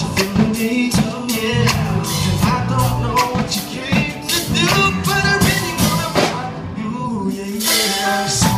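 Live reggae band playing through a PA: a man singing over drum kit, electric bass, electric guitar and keyboard, with a steady drum beat.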